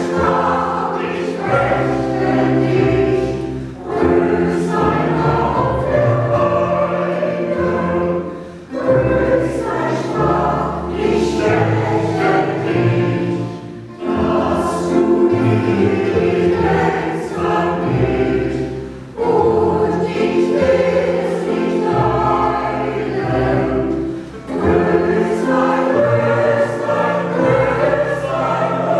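Mixed choir of women's and men's voices singing in phrases of about five seconds, with short breaks between them, accompanied by a mandolin orchestra.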